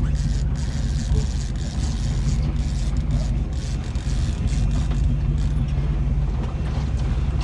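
Charter fishing boat's engine running steadily at trolling speed: a constant low drone, with irregular wind and water noise over it.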